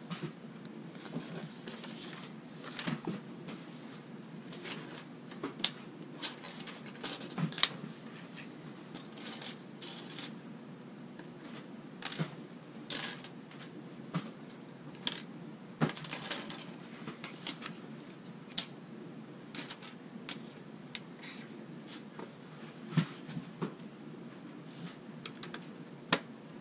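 LEGO bricks being handled: irregular sharp clicks and clatters of small plastic pieces picked from a loose pile, set down on a wooden table and snapped together.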